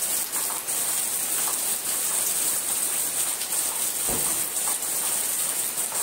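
Heavy rain falling steadily, a constant hiss, with one dull thump about four seconds in.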